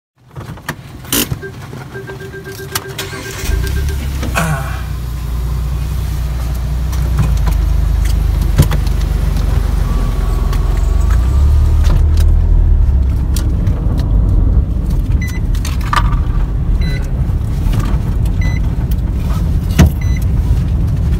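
Car interior with the car running: a steady low engine and road rumble that swells a few seconds in. A short run of rapid electronic beeps comes near the start, and there are scattered clicks and knocks and a few short high blips later on.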